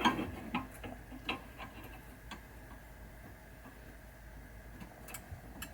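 Light, irregular clicks and taps of small parts and tools being handled, several close together at first and then sparser, over a faint steady hum.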